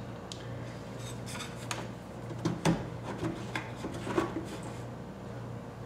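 Handling noise from a loose 12-inch speaker driver with a stamped metal basket being turned over in the hands: scattered light knocks and rubbing, loudest a little before the middle. A steady low hum runs underneath.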